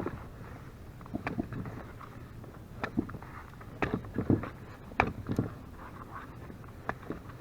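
Scattered, irregular knocks and clatters of gear being handled aboard a plastic fishing kayak while the anchor is being set, over a low steady background of wind and water.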